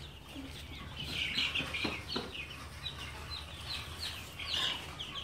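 Baby chicks peeping: a rapid, continuous run of short, high chirps, each falling in pitch.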